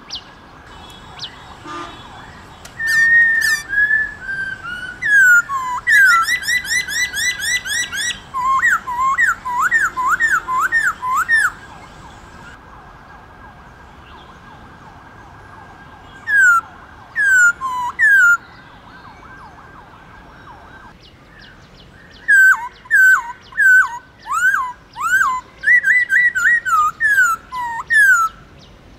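Black-throated laughingthrush singing: runs of loud, clear whistled notes that slide downward, in bursts, with a pause of several seconds around the middle.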